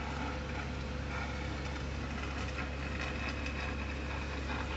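Craft knife blade scraping along the silicone seam sealer in the inside corner of a glass aquarium, a faint scratching, over a steady low machine hum.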